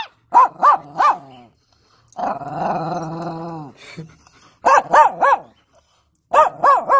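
A dog barking in quick runs of three, three times over, with one longer held growling call of about a second and a half between the first two runs.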